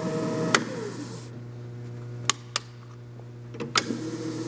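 Shauer speed lathe's two-speed three-phase motor switched from high speed (1140 RPM) to low (570 RPM): a click about half a second in, then its hum falls in pitch as the spindle slows and runs on steadily and quietly at low speed. A few sharp clicks follow later.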